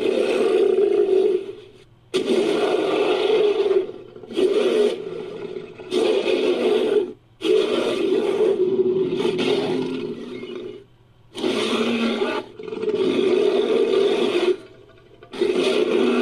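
Designed creature sound effect: a string of about eight roars and growls, each one to two seconds long, with short pauses between. The voice is mixed from animal and movie-monster roar recordings such as ape, lion and bear roars.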